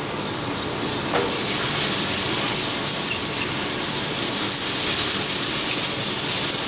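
Bone-in pork chops sizzling in oil on a hot griddle top as they are laid down with tongs, a steady loud hiss that builds over the first couple of seconds as more chops go on.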